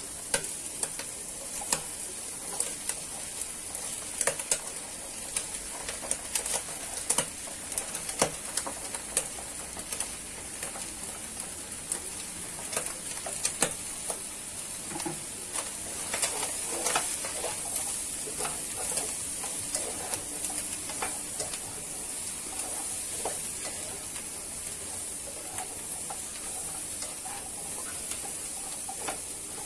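Celery and dried scallops sizzling in hot oil in a wok as they are stir-fried, a steady hiss throughout. Frequent sharp clicks and knocks of the spatula and food against the pan, thickest in the first half.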